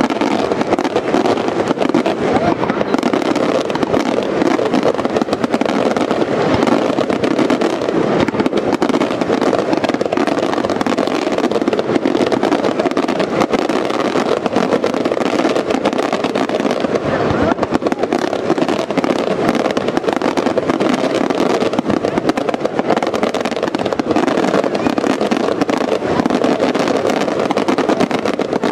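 A finale barrage of aerial fireworks, with bangs so close together that they run into one another in a loud, unbroken stream of explosions and crackling.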